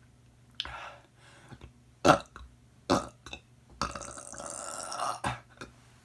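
A person burping over and over: a string of short separate burps, with one longer drawn-out stretch around the middle.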